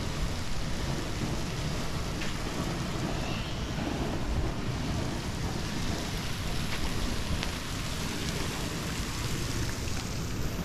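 Hot-spring geysers spouting, a steady hiss and splash of water jets falling back onto rock, like rain, under a low rumble of wind on the microphone.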